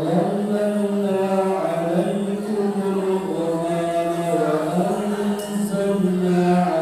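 A boy's voice reciting the Quran from memory in melodic chant, starting right at the start and holding long, drawn-out notes that step slowly up and down.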